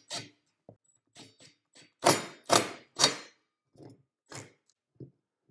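Cordless impact driver firing in three short bursts, snugging a 3/8-inch lag bolt through the heater's ceiling bracket into the wood framing, with lighter clicks and knocks from the bracket and tool around them.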